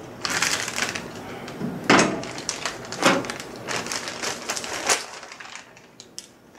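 Clear plastic parts bag crinkling in several bursts as it is handled and opened.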